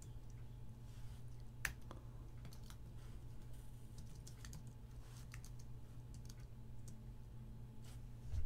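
Typing on a computer keyboard: irregular keystroke clicks, a few a second, over a steady low hum.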